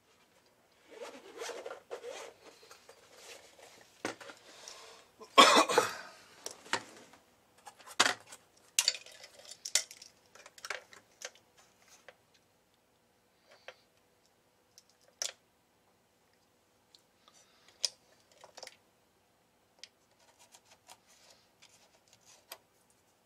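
Hands handling a handheld component tester and its test leads over an amplifier's circuit board: rustling and clattering of small hard parts, loudest about five seconds in, then scattered sharp clicks that thin out as the leads are set on the transistors.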